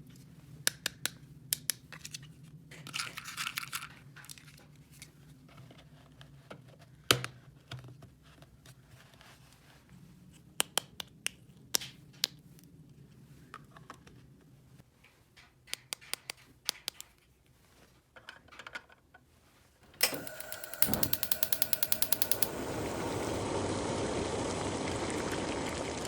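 Small plastic toy kitchen pieces handled with scattered clicks, taps and light scraping. About 20 seconds in there is a loud click, then a fast, even ticking, and then a toy kitchen faucet starts pouring a steady stream of water.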